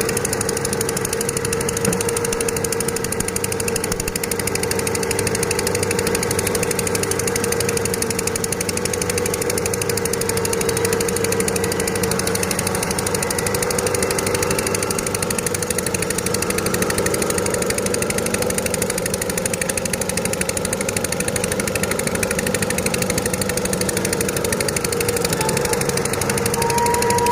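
Excavator engine running steadily at a constant speed, with a steady hum and a fine, even pulsing throughout.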